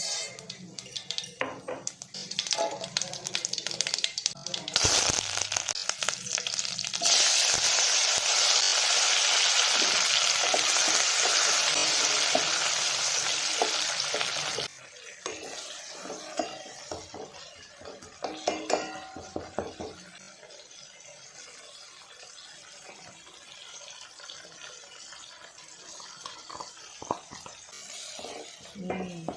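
Food frying in hot oil in a cooking pan, with a utensil stirring and clinking against it. A loud, even sizzle builds about five seconds in and cuts off suddenly about halfway through, leaving softer stirring and tapping.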